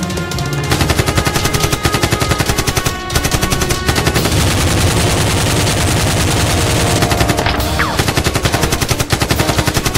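Rapid automatic gunfire effects, many shots a second, with a brief break about three seconds in, over background music.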